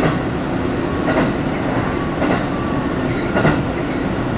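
Train running along the line, heard from inside the carriage: a steady rumble with a short clack about once a second.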